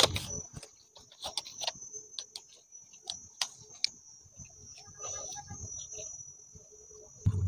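Scattered clicks and crinkles of a clear plastic food container being handled with plastic-gloved hands, with eating sounds as she bites the food. A steady high-pitched insect trill runs underneath.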